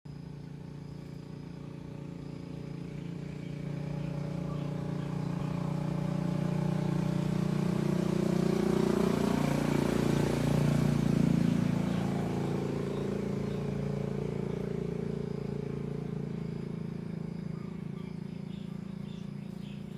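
A motor vehicle's engine passing by: it grows louder over several seconds, is loudest about halfway through, then slowly fades away.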